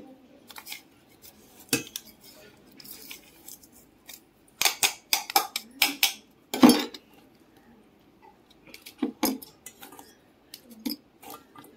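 Stainless steel spoon scraping and clinking in a steel mixer-grinder jar, and the jar knocking against a steel bowl as the jar is emptied: irregular metal clatters with quiet gaps, the loudest a little past halfway.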